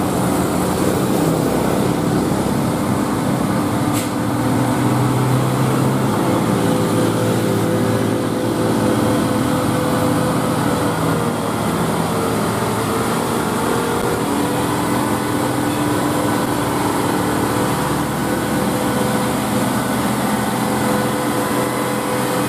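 Diesel engine of a heavily loaded Hino cargo truck pulling up a steep hill under load, a steady engine drone whose pitch shifts a little as it climbs. A brief sharp click about four seconds in.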